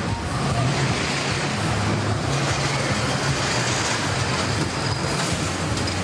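Small fairground roller coaster car rolling past on its tubular steel track, a steady rolling rumble over the general din of the fair.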